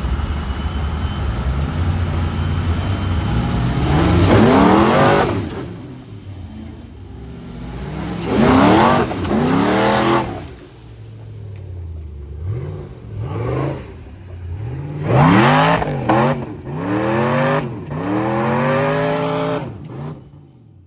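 Off-road truck engine running low, then revved hard about five times, each rev rising and falling in pitch as the truck works up a rock ledge.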